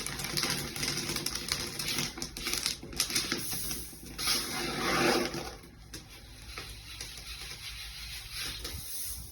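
Dried peas popping and crackling as they roast, a rapid run of small clicks that thins out after about five and a half seconds.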